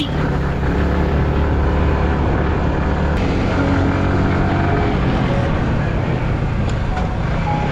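Motorcycle engine running steadily while riding along, with wind rushing over the camera's microphone.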